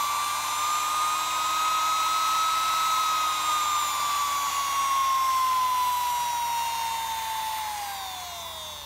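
Small sewing machine motor, a brushed universal motor, running at high speed on a router speed control, with a steady high whine. Near the end the whine falls in pitch as the motor slows and winds down.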